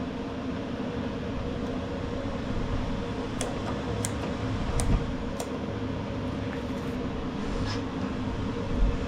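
Steady hum of a workshop fan or air conditioner, with a handful of light, sharp clicks of small metal mower parts being handled as the new drive gear is fitted, mostly in the middle of the stretch.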